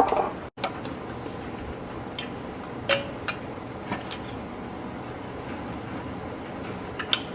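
Steady workshop background noise with a few scattered light clicks and one short clink as engine parts are handled.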